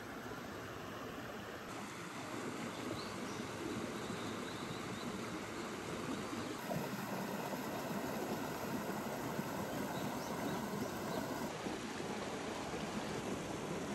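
A steady rush of flowing stream water.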